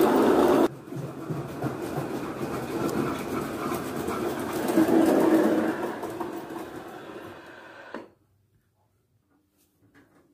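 Gauge 1 model train running on its track. A loud rolling noise as the coaches pass close drops sharply under a second in. It goes on as a steadier running noise that swells again around five seconds and fades, then cuts off at about eight seconds, leaving only a couple of faint clicks near the end.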